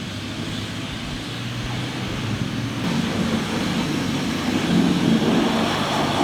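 Jet wash lance spraying water in a steady hiss, with a low hum underneath; the spray pressure is weak.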